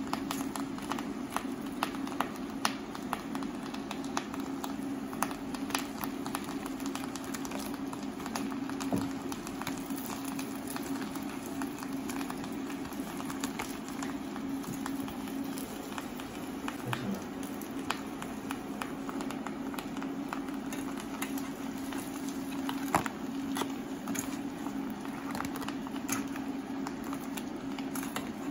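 Garlic-butter sauce bubbling and crackling in a frying pan of crabs, with many small pops and clicks as raw shrimp are laid in, over a steady low hum.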